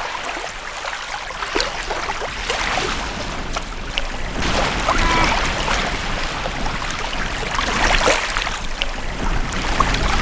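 Shallow water trickling and lapping at a sandy shoreline, with many small irregular splashes and wet-sand dabs.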